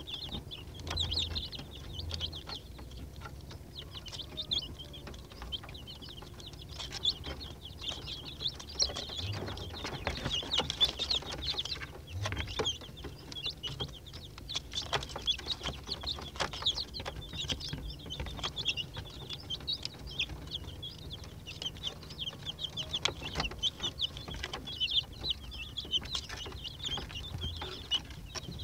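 A brood of young Rhode Island Red chicks peeping without a break, many short high chirps overlapping, with a few sharp taps among them.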